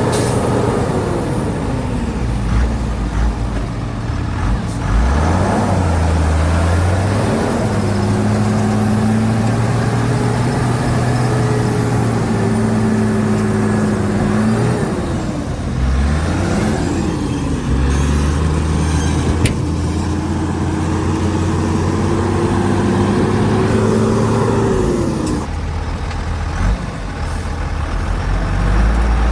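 Heavy diesel engine working under changing load: its pitch drops over the first few seconds, then climbs and dips several times, falling again a few seconds before the end and rising once more.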